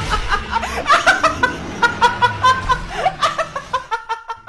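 A young woman laughing hard in a rapid, high-pitched cackle, about five short bursts a second.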